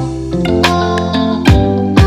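Background music: sustained guitar notes with a couple of drum hits.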